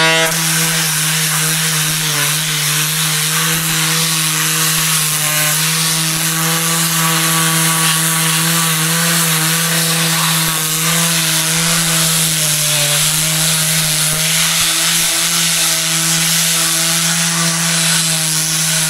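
DeWalt cordless random orbit sander with 40-grit paper running steadily at full speed, its pad grinding against a concrete-block wall to sand excess mortar off the block faces.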